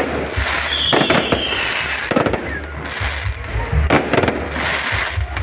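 Fireworks going off: a string of bangs and crackles, with a short falling whistle about a second in.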